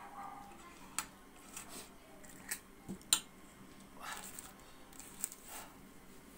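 Scattered small clicks and crackles of a fork cracking and handling crisp puri shells, the sharpest about three seconds in, with a short plastic-bag rustle about four seconds in.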